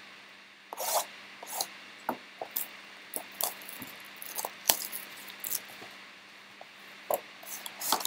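Plastic shrink wrap crinkling and gloved fingers rubbing and tapping a cardboard trading-card hobby box as it is unwrapped and opened, in scattered short crackles with one sharper click a little past the middle.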